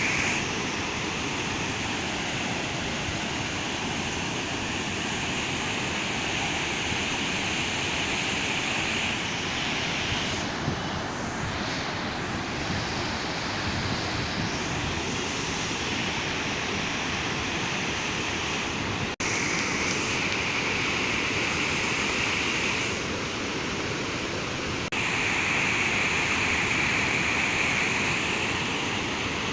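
Heavy rain pouring down: a steady rushing noise, with a momentary break about two-thirds of the way through and sudden shifts in tone soon after.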